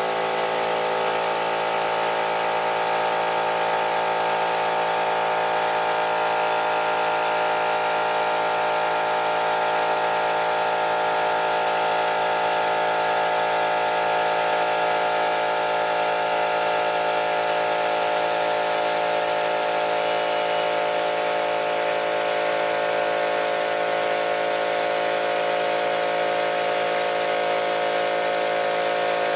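Harbor Freight Central Pneumatic 125 PSI air compressor running steadily, pumping up its tank. The tank pressure climbs throughout, a sign that the repaired reed valve is now holding.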